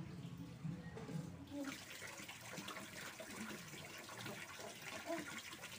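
Tap water running in a steady stream and splashing into a large basin already holding water. It starts about a second and a half in.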